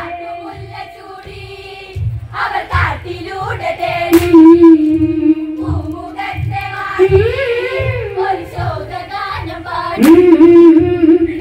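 Women's voices singing a Malayalam Onamkali song together, softly at first and louder from about two seconds in, over a steady low beat.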